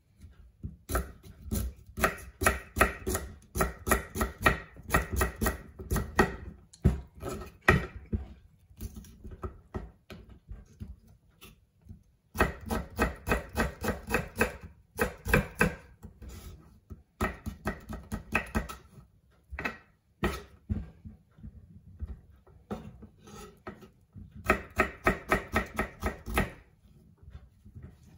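Chef's knife chopping cucumber on a wooden chopping board: runs of quick, even knife strikes against the board, several a second, broken by short pauses between runs.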